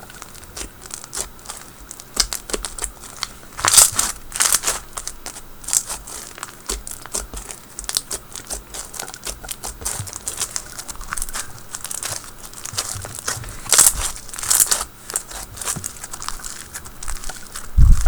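White glue slushie slime being squished and pressed by hand, giving a continuous run of crunchy crackles and pops, with louder bursts about four seconds in and again near fourteen seconds.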